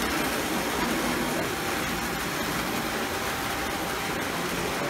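Several vintage model trains running at once on the metal track of a historic tabletop layout: a steady whirring rattle of small motors and wheels.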